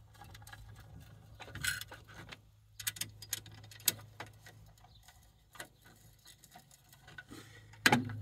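Light, irregular metal clicks and ticks of a screwdriver tightening set screws on a cable TV line extender amplifier in its aluminium housing, with a sharper click near the end. A faint steady low hum runs underneath.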